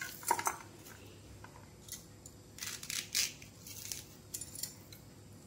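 A red onion being peeled and cut in the hand with a serrated kitchen knife: a few short, crisp scraping and cutting sounds, scattered, the largest group about three seconds in.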